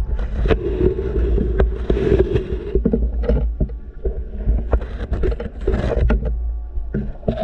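Underwater sound through an action camera's housing: a steady low rumble and swish of moving water, with scattered clicks and knocks.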